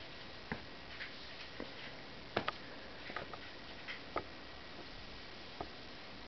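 Irregular light taps and clicks of a puppy scrabbling and playing with a rope toy on a rug, a quick double click about two and a half seconds in the loudest, over a steady faint hiss.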